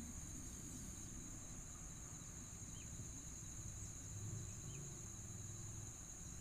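Steady high-pitched drone of insects, crickets or cicadas, with a few faint short bird chirps.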